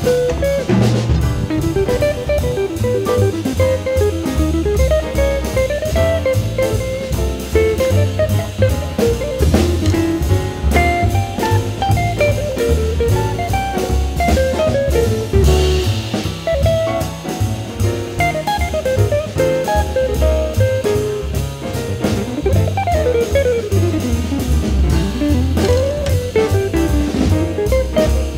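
Instrumental background music with a steady drum beat under a winding melody.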